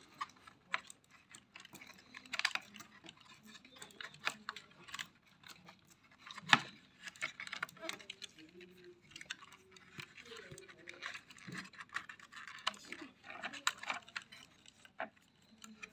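Plastic parts and wiring of a robot vacuum's opened housing being handled and fitted by hand: scattered light plastic clicks and taps, with one sharper snap about six and a half seconds in.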